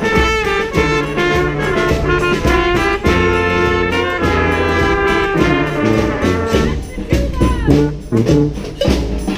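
Brass street band playing a Peruvian cumbia: held brass chords over a bass line, breaking into shorter, choppier notes about seven seconds in.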